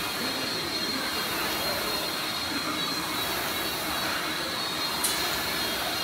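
Air rowing machine's fan flywheel spinning under hard strokes, giving a steady whoosh of air, with two sharp clicks about a second apart near the end.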